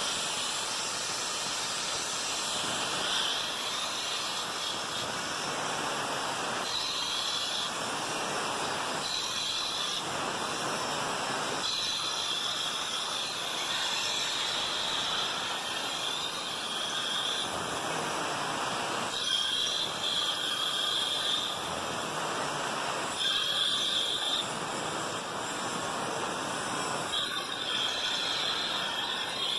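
Angle grinder with a cut-off disc cutting perforated sheet metal from a washing-machine spin drum: the motor runs steadily and the disc screeches in stretches of a second or more each time it bites into the metal.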